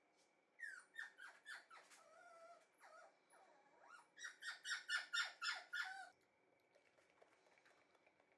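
Shiba Inu puppy yipping: about six short high yips that each fall in pitch, some softer whimpering, then a quicker, louder run of about ten yips that stops about six seconds in.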